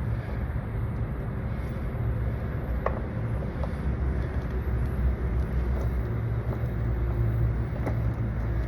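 Steady low mechanical hum, with a few faint light clicks about three seconds in and again near the end.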